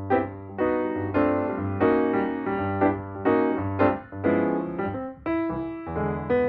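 Background music led by piano or electric piano, with notes struck in a steady rhythm over a low bass line.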